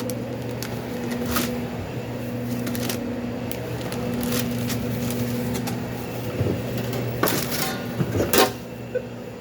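Steady electrical hum of kitchen equipment behind the counter, with scattered light knocks and clicks from handling things during sandwich making.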